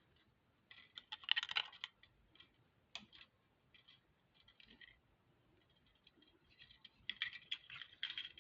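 Faint clicking and scratching of thin silver craft wire being twisted around glass beads by hand, in a burst about a second in and another near the end, with scattered ticks between.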